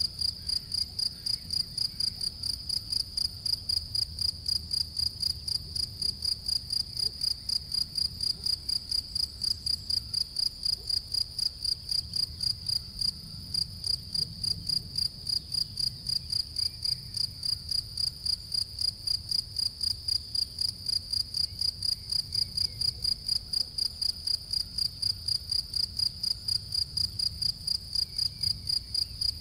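Male European field cricket (Gryllus campestris) singing its calling song: a shrill, even train of chirps at about three a second, with one short break about halfway through.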